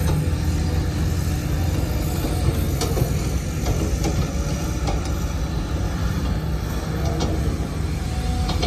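Cat 323GC excavator's diesel engine running steadily with a deep rumble, with a few short knocks and clatters from the working machine.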